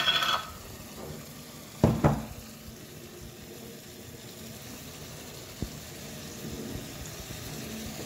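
Garden egg stew frying and sizzling steadily in a stainless steel pot on the stove. About two seconds in there are a couple of clanks of the metal spoon against the pot, and one light click later.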